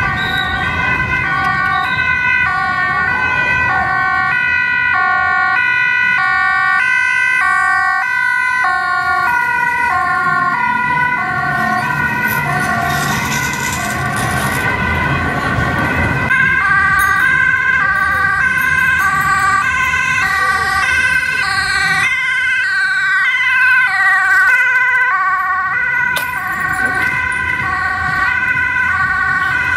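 Dutch ambulance two-tone siren, alternating steadily between a high and a low note, with traffic noise underneath.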